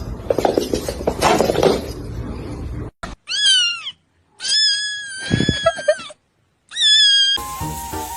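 A cat meowing: a quick run of short, falling meows about three seconds in, then a long drawn-out meow and one more short one, all high-pitched. Before the meows there is a stretch of noisy rustling, and music starts near the end.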